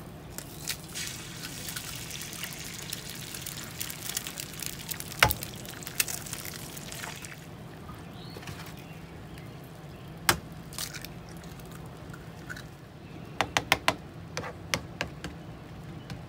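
Eggs being cracked one after another onto a hot griddle: sharp shell cracks every few seconds, with a quick run of them near the end, over the sizzle of the eggs frying, which is strongest in the first half.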